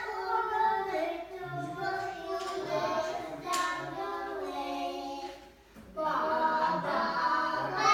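A child singing, with held notes that slide in pitch, breaking off briefly about five and a half seconds in and then starting again.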